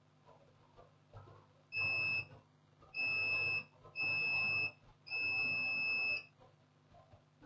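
Multimeter continuity buzzer beeping four times as the probes are touched across a capacitor on an ECU board. The last beep is the longest. The beeps show continuity across the part: the short circuit is still there.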